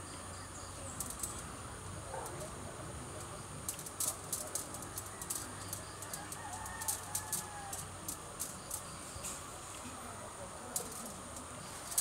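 Light, sharp clicks and snips of bonsai wire and wire cutters being handled while branches of a ficus are wired, scattered irregularly, over a steady high insect hiss; a bird calls faintly around the middle.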